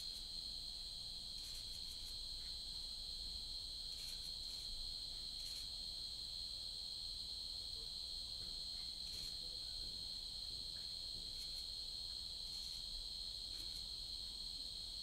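A steady, high-pitched chorus of insects, an unbroken shrill trill, with a few faint short ticks now and then.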